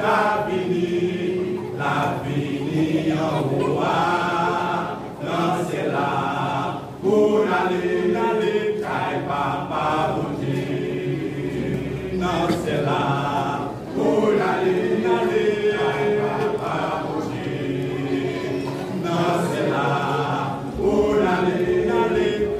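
Men's vocal group singing a gospel song in several parts, without instruments, in phrases a few seconds long.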